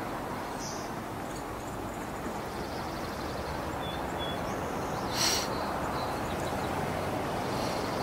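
Steady outdoor background rush. About four seconds in come two faint, short, high bird chirps, and about a second later a brief hiss.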